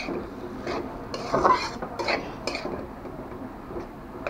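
Metal spatula scraping and clinking against a metal wok while stirring, in several irregular strokes, the loudest about a second and a half in.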